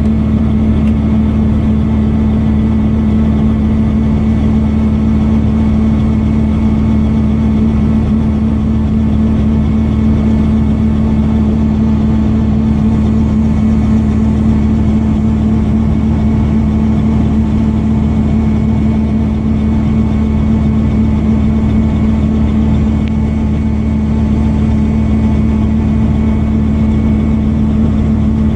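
Robinson R44 Raven I helicopter's piston engine and rotors running steadily: a loud, even drone with a strong steady hum.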